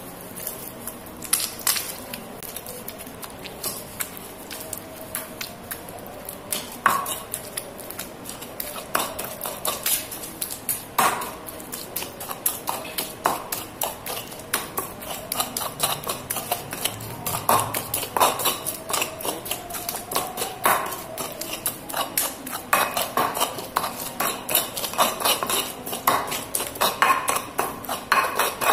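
Pestle grinding and knocking in a stone mortar (cobek), a run of scraping taps as fried tomato is worked into the chilli paste. The taps come quicker and closer together in the last third.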